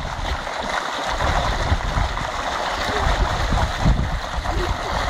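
Water gushing steadily into a concrete tank, churning the surface white, with splashing from children swimming in it.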